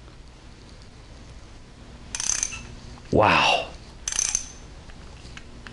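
Bonney ratchet wrench with a 1/2-inch-drive socket on it, its pawl clicking rapidly in two short bursts as it is swung back. The clicking is light and quick: the ratchet has very little back drag.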